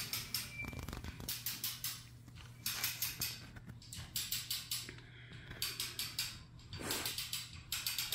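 Hand-operated ratchet on the hull's lifting gear clicking in quick runs of several clicks each, a run every second or so, as the hull is cranked over.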